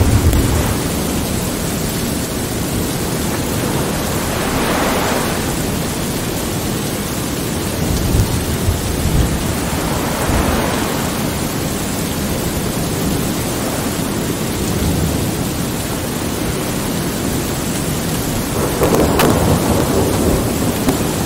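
Thunderstorm: a steady hiss of rain with low rolls of thunder, strongest near the start and about eight seconds in, and several louder swells.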